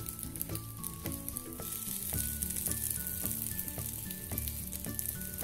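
Chicken seekh kababs sizzling in hot oil in a ridged grill pan as each one is laid in, a steady crackling hiss. Soft background music plays a slow stepping melody underneath.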